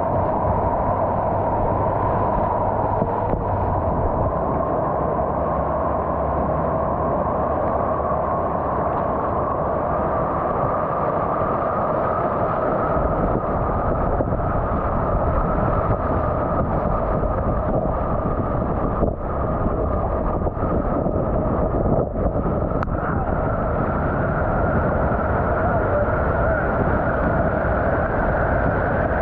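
Steady rushing of whitewater rapids around a slalom kayak as it is paddled through the waves, with a few short breaks in the noise about two-thirds of the way in.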